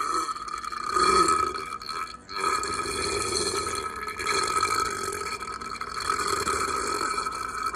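A woman burping: long, drawn-out burps, the loudest about a second in, then a brief break a little after two seconds and another long burp that runs on.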